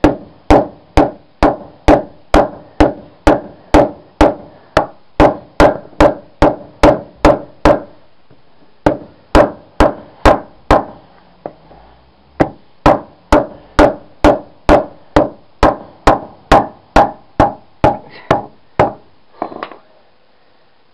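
Big hammer pounding a lead-sheathed conduit pipe flat on paving stones: steady blows about two and a half a second, each with a short ring. The blows break off twice for about a second and stop shortly before the end.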